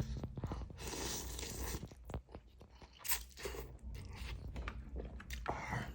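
A person chewing and crunching a mouthful of beef noodle soup with fresh vegetables, in irregular bites close to the microphone.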